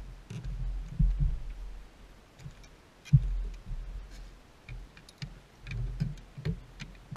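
Dull thuds and knocks of feet stepping and shifting on a bass boat's carpeted front deck, close to the deck-mounted camera, the loudest just after 3 seconds in. Light clicks and rattles come between the thuds.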